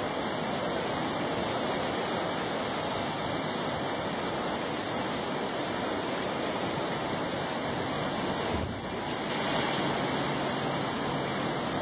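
Ocean surf washing against a rocky shore, a steady rushing wash of water, with some wind on the microphone.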